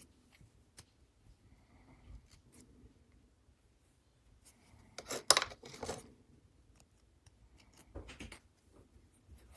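Faint scattered clicks and handling noises, with a louder rustling scrape about five seconds in and a shorter one near eight seconds.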